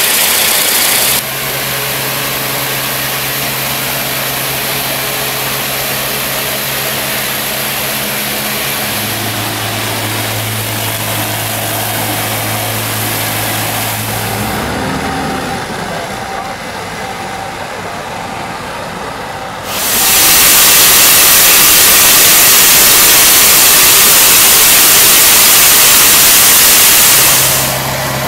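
A Falch Scater 5 500-bar rotary surface cleaner sprays high-pressure water with a steady hiss over a steady engine hum. The hum drops in pitch partway through. In the second half the spray hiss gets much louder for several seconds.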